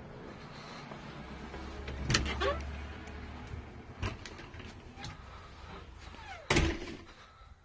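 A house front door being opened with a latch clatter about two seconds in, then a few light knocks, and a loud thud near the end as it is pushed shut. A short squeak comes just before the thud. A low hum fades out about halfway through.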